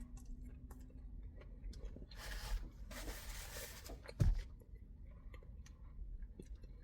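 Faint sounds of someone eating fried chicken: small clicks of chewing, a soft hiss two to four seconds in, and one dull thump about four seconds in.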